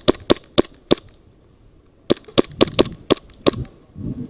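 Airsoft gun shots, sharp cracks a few per second. A short string ends about a second in, and after a pause of about a second a second, more uneven string of about six shots follows.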